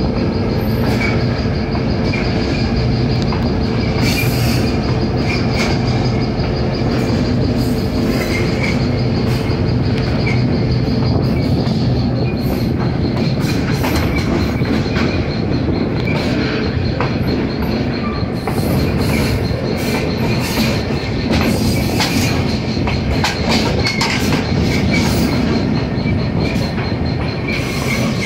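EMD GP7 diesel locomotive's 16-cylinder two-stroke engine working under load as it pulls a train, heard up close from the locomotive's own walkway. Wheels click irregularly over the rail joints, and a steady high whine runs under the engine.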